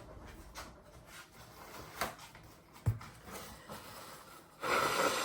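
A person blowing their nose hard into a tissue near the end, one noisy blast of under a second, after a couple of small knocks and faint rustling as the tissue is fetched.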